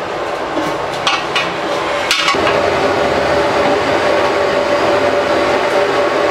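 Rice grains poured into a large aluminium pot of spiced water and stirred with a long iron ladle, with a few sharp clacks between about one and two and a half seconds in, over a steady, loud rushing noise.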